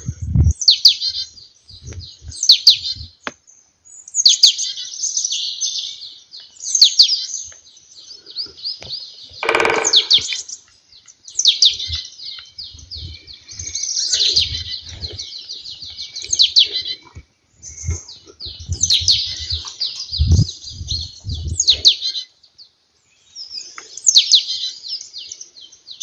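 A songbird singing short repeated phrases of fast high notes, a new phrase every second or two, over soft footsteps on the forest floor.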